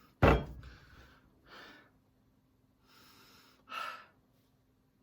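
A single sharp thump about a quarter second in, followed by a few short breaths at the microphone.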